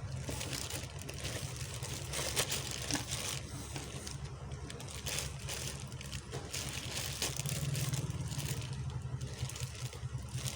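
Packaging rustling and crinkling in irregular patches as it is handled, over a steady low hum.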